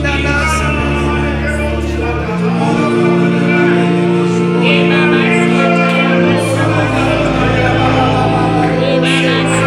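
Live gospel worship music: a keyboard holds sustained chords while singers sing over them. The chords change about two seconds in and again a little past six seconds.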